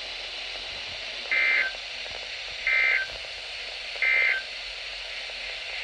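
NOAA Weather Radio SAME end-of-message code: three short, buzzy digital data bursts about 1.4 seconds apart over steady radio hiss, signalling the end of the alert test message.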